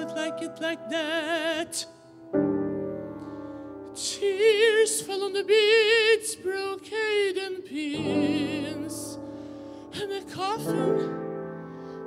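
A singer sings in an operatic style with a wide vibrato, accompanied by a grand piano. The voice pauses twice, about two to four seconds in and about eight to ten seconds in, leaving held piano chords alone.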